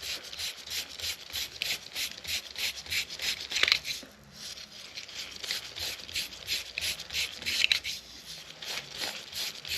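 A .22 bore brush on a cleaning rod scrubbed back and forth through a solvent-wet Glock 44 barrel, a quick run of scratchy rasping strokes about three a second, with a short pause about four seconds in before the scrubbing resumes.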